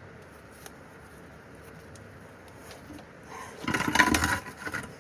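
A short burst of clattering knocks, like metal parts being handled, starts about three and a half seconds in and lasts about a second. Before it there is only a faint background.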